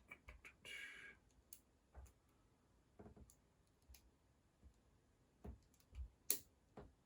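Faint, scattered clicks and taps of small metal construction-set parts, nuts and bolts being handled during assembly, with a brief rustle about a second in and a sharper click near the end.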